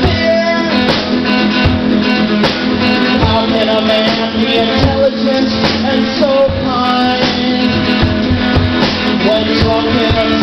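Live rock band playing loud, with a drum kit's steady hits driving the music.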